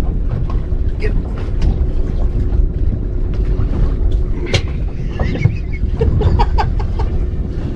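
Wind buffeting the microphone with a low rumble, under a faint steady hum that stops about four and a half seconds in. Scattered sharp clicks and knocks, and brief indistinct voices about five to seven seconds in.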